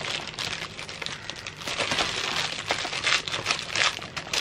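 Thin clear plastic bag around a cable crinkling as it is handled, with irregular quick crackles.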